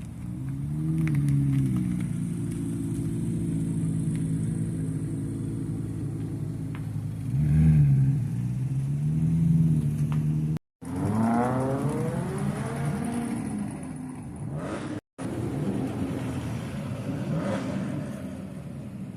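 Classic car engines running and being revved, in short clips joined with abrupt cuts: a steady idle with throttle blips that rise and fall in pitch, then an engine that revs high and winds back down.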